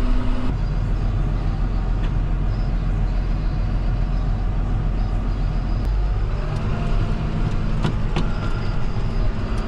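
John Deere 7530 tractor's six-cylinder diesel engine running steadily, heard from inside the cab. Its note shifts about half a second in and again around six seconds in.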